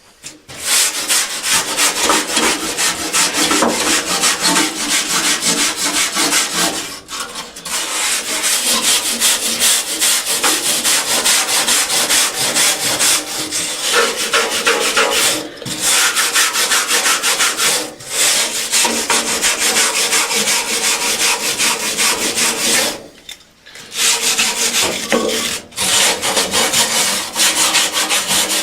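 Rough abrasive rubbing, sanding at a surface in fast continuous strokes, broken by a few short pauses.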